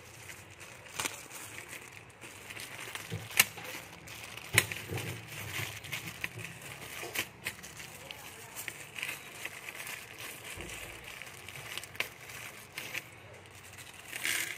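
Clear plastic bags crinkling and rustling as hands open and crumple them, with scattered sharp clicks; two louder clicks stand out about three and a half and four and a half seconds in.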